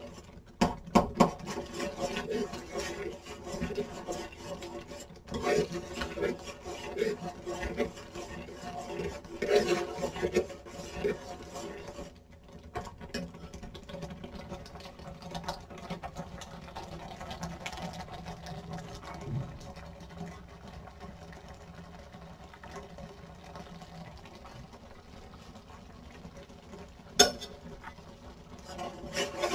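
A utensil scraping and stirring in a cooking pot, with irregular knocks and clinks. It settles to a quieter steady background about twelve seconds in, with one sharp knock near the end.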